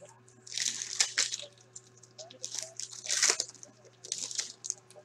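Foil wrapper of a hockey card pack crinkling in four short bursts as it is torn open and handled, the loudest about three seconds in.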